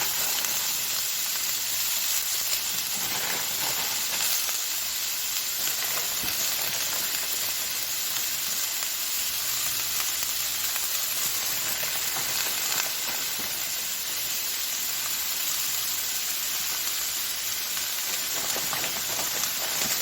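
Spinach and broccoli sautéing in an oiled pan, sizzling steadily with a fine crackle.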